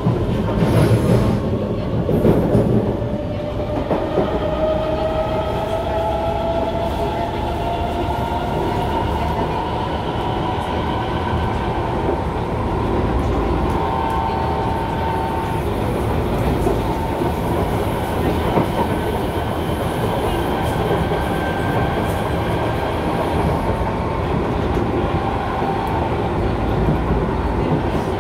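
Inside a Kawasaki C151 MRT train accelerating, its traction motors whining strongly: several tones climb in pitch over the first ten seconds or so and then hold steady. Underneath runs the rumble of the wheels on the rails, rougher and louder in the first few seconds.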